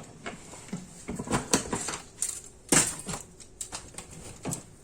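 A series of short clicks and clinks of hard objects being handled, the loudest about three seconds in.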